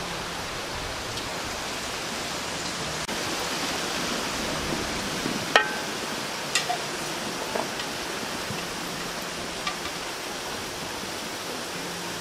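Water boiling in a large metal steamer pot, a steady rushing hiss, with a few light metallic clinks near the middle as stuffed bell peppers are set on the wire steaming rack.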